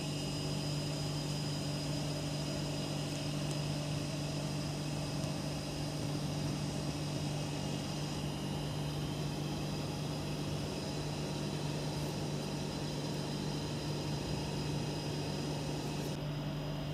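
Steady hum of kitchen machinery running, with a few constant tones and no change in level.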